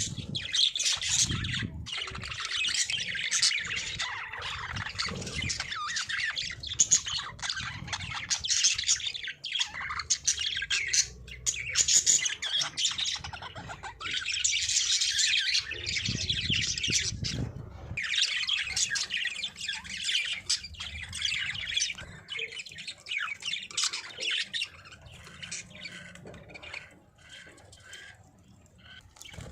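Budgerigars chattering and chirping in a fast, continuous warble with squawky notes mixed in, growing softer over the last several seconds.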